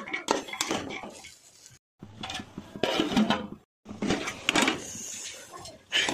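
Metal ladle scraping and clattering against an aluminium pot as chunky vegetables are stirred, with a metal lid clanking onto the pot partway through.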